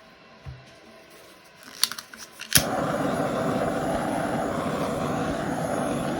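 Handheld butane torch: a few igniter clicks, then the flame catches with a sudden steady hiss that holds for about four seconds and is shut off with a click.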